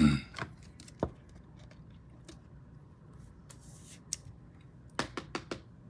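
Trading cards being handled: a sharp click about a second in, a soft scrape, then a quick run of clicks near the end.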